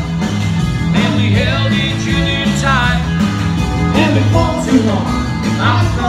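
A live band playing a song: a man singing over keyboard, bass and a steady beat.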